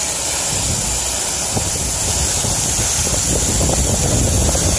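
Air-conditioning condensing unit running, its fan blowing air across the microphone: a steady rushing noise with a heavy low rumble.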